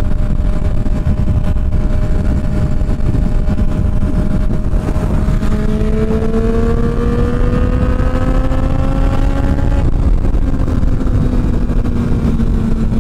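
Motorcycle engine under way with heavy wind rush, pulling up through the revs in a steady rising note for about five seconds before the throttle is rolled off near the ten-second mark.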